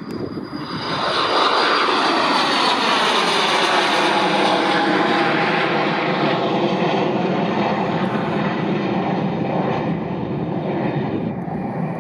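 Pilatus PC-24 business jet's twin Williams FJ44 turbofans at takeoff power as it climbs out overhead: the jet noise swells to loud about a second in and holds, its whining tones falling steadily in pitch as the aircraft passes and draws away.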